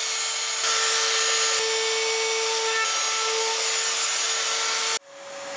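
Handheld trim router running steadily while routing into a maple blank along a guide: a steady whine over the hiss of the bit cutting. It cuts off abruptly about five seconds in, followed by a different steady motor hum that rises in level.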